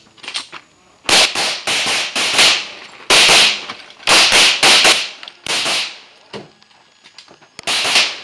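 Glock 24 pistol in .40 S&W firing rapid shots, mostly in quick pairs, about fifteen shots in several strings with short pauses between them and a longer pause near the end before a last pair.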